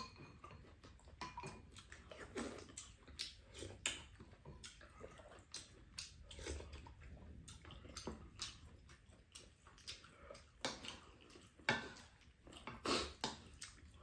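Two people eating at close range: slurping soup off spoons and chewing, in a run of short, irregular mouth sounds, the loudest slurps near the end.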